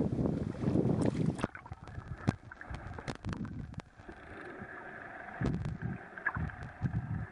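Wind and choppy water splashing against a camera held at the sea surface. About a second and a half in the camera goes under and the sound turns muffled, with scattered sharp clicks and low thumps from underwater.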